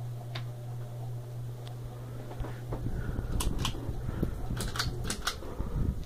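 Ceiling fan motor running with a steady low hum, which gives way a little before halfway to a noisier whir with a string of sharp clicks, mostly in pairs.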